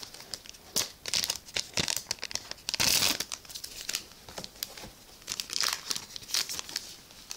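Cardfight!! Vanguard booster pack wrapper crinkling and tearing as it is opened, a quick run of crackles with a louder, longer rip about three seconds in.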